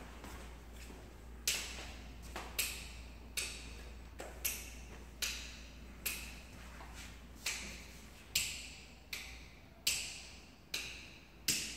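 A steady series of sharp taps, starting about a second and a half in and coming a little more than once a second, each with a short ringing echo.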